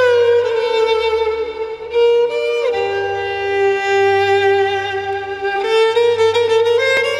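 Background instrumental music: a slow melody of long held notes that slide from one to the next, over a low accompaniment.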